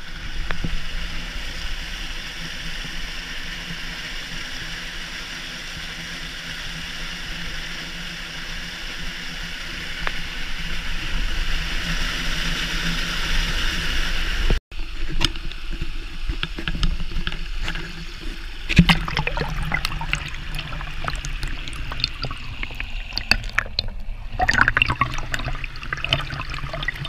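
Water in a swimming pool of a rocky wadi, heard as a steady rush for about half the time. After a sudden break it turns uneven, with many short clicks and knocks mixed in.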